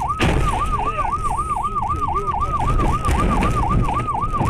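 Fast yelp siren warbling up and down about five times a second, over low road and engine rumble. A short noisy burst breaks in just after the start.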